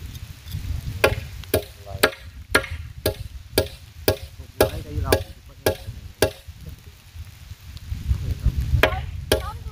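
Repeated blows of a tool striking the timber of the posts, about two a second, each with a short ring. After a pause, two more blows come near the end.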